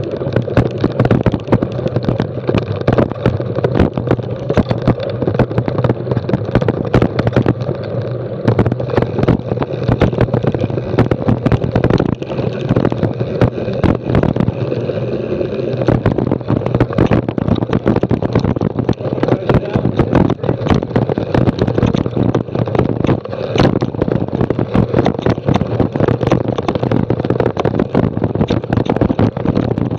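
Mountain bike rattling and clattering over rocky dirt singletrack, heard through an action camera riding on the bike or rider. Constant knocks from the rough ground, with tyre and wind noise underneath.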